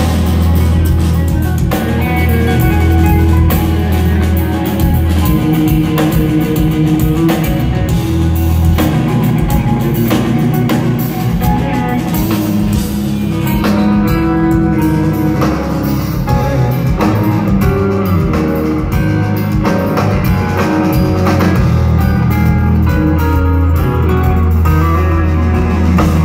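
Live instrumental progressive metal played by a trio of two electric guitars and a drum kit, with dense intricate guitar lines over drums and a heavy, boomy low end. It runs loud and continuous without a break.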